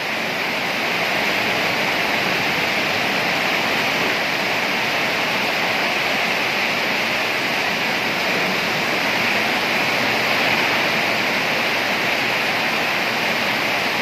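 Heavy rain falling in a steady downpour, with water pouring off the roof edge.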